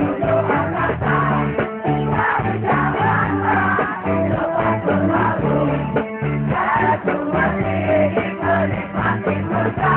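A live band playing loud amplified rock music with a steady drum beat and bass line, with some singing.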